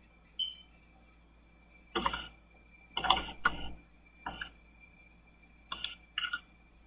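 Irregular clicks and taps from a computer keyboard and mouse, about seven short ones spread unevenly, some in quick pairs.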